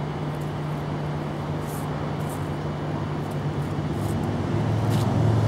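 Steady low mechanical hum, like a nearby engine or machine running, that drops slightly in pitch and grows louder near the end, with a few faint light ticks.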